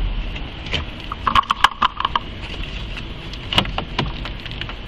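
Sharp plastic clicks and knocks as the wiper/turn signal combination switch is pushed down and snapped into place on the steering column. There is a short high tone lasting under a second, about a second and a half in.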